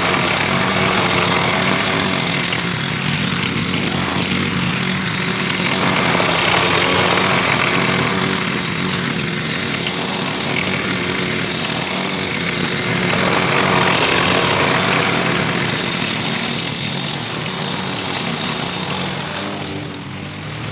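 Lawn mower engine running steadily while mowing grass, its loudness rising and falling a little every few seconds.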